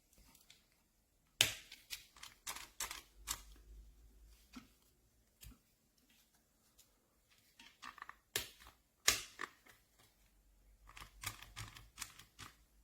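Irregular sharp clicks and light knocks of small hard objects being handled, coming in three clusters with quieter gaps between.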